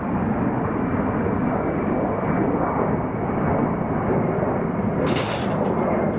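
Boeing KC-46A Pegasus's two Pratt & Whitney PW4062 turbofans at climb-out power after takeoff: steady, loud jet engine noise with a faint thin whine above it. A brief hiss comes in about five seconds in.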